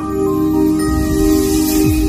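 Intro music: a sustained chord that swells with a whooshing rise, and a low tone sliding downward near the end.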